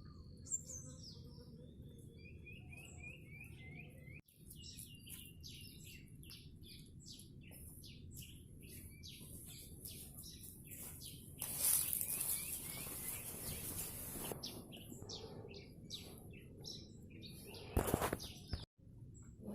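Wild birds chirping and calling, many short repeated chirps with a run of falling notes in the first few seconds, over a low steady outdoor rumble. A burst of rustling noise comes about twelve seconds in and a shorter one near the end.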